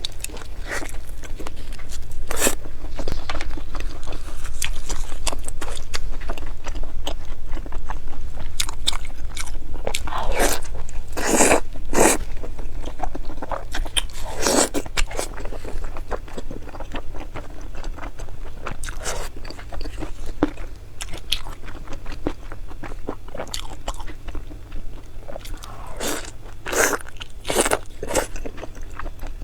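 Close-miked eating of crunchy food: irregular crisp bites and crunching chews, with several louder bites around the middle and again near the end.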